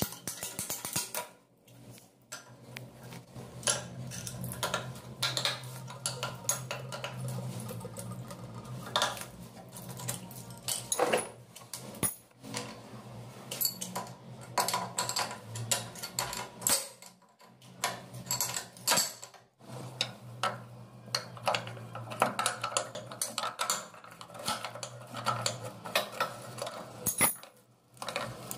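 Hand tools clicking, tapping and scraping against metal pipe fittings under a washbasin: many irregular sharp clinks, with a steady low hum underneath for much of the time.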